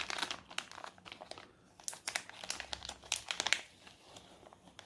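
Plastic packaging crinkling and crackling in irregular bursts as it is handled and opened by hand.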